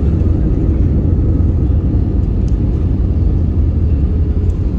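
Steady low rumble of a jet airliner's cabin as the plane rolls along the runway, with engine noise and the wheels on the tarmac blending into one even roar.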